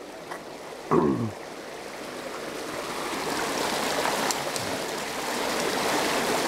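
Swift water rushing and churning out of a culvert pipe, a steady rush that grows louder over the first few seconds. About a second in, a brief falling pitched sound, like a short exclamation, stands out over it.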